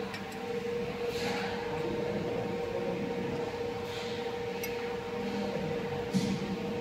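Steady machine hum of workshop equipment, one constant mid-pitched tone over a low rumble, with a few light metallic clicks and a small knock as the filling machine's stainless valve parts are handled.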